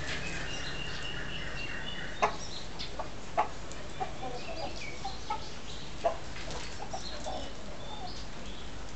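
Betong rooster clucking: a few short, sharp, loud clucks spread through several seconds, with softer, lower clucks between them.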